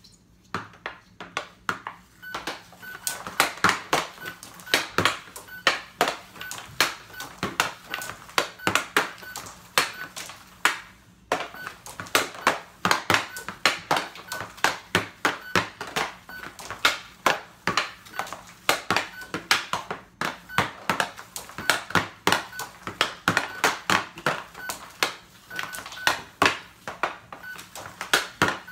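Hockey stick blade and puck clacking rapidly on a SuperDeker plastic stickhandling board, several sharp taps a second, with a short pause about eleven seconds in. Faint short electronic beeps from the trainer sound now and then.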